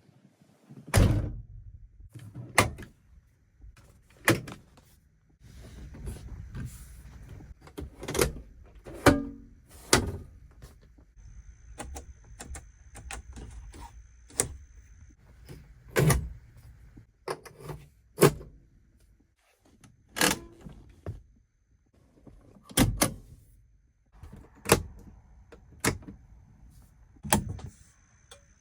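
Doors and latches of a 1969 Chevelle SS being opened and shut: a long series of separate thunks and clunks, about one every second or two, with lighter clicks and rattles between them.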